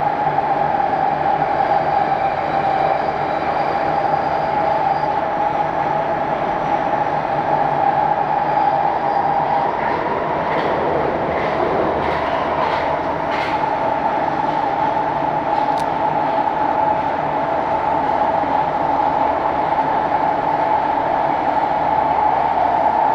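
Vagonmash S81 metro train with DK-117 traction motors running through the tunnel, heard from inside the passenger car: a steady loud rumble with a constant whine. A short run of sharp clicks comes about ten to fourteen seconds in, with one more a little later.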